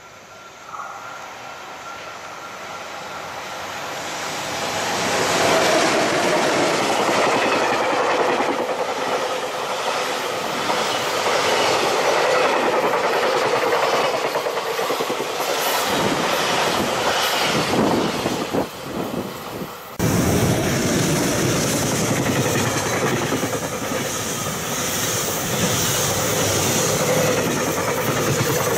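A freight train hauled by an EH200 electric locomotive draws near and passes, then its container flatcars roll by with a steady rhythmic clickety-clack of wheels over rail joints. The sound swells over the first few seconds and jumps abruptly about two-thirds of the way in.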